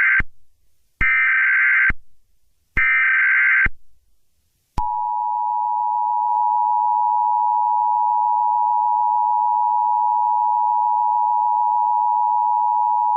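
Emergency Alert System SAME header: three short bursts of digital data screech, about a second each, then after a short pause the EAS two-tone attention signal, a steady dual-tone drone held for about eight seconds, opening a civil danger warning.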